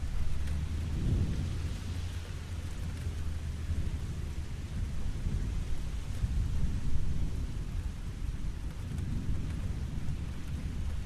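Steady rain falling on a lake under a continuous low rolling rumble of thunder. The rumble swells about a second in and again near the end.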